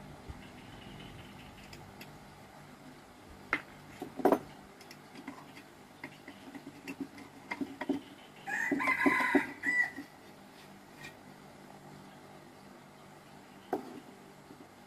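Scattered sharp clinks of metal hand tools and chainsaw parts being handled, and, about two-thirds of the way through, a loud pitched bird call lasting about a second and a half.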